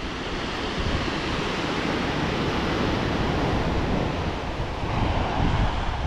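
Pacific Ocean surf breaking and washing up a sandy beach in a steady rush, with wind rumbling on the microphone.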